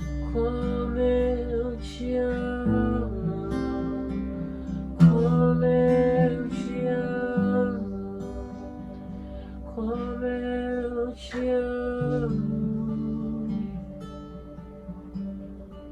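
Acoustic guitar playing slow sustained chords, with a voice singing three long phrases over it without clear words.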